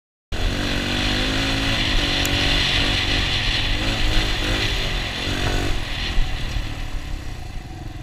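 Dirt bike engine running hard under throttle, its note rising and falling as the rider works the throttle, with wind rushing past the helmet-mounted camera. It starts after a brief moment of silence and gets quieter over the last couple of seconds as the bike slows.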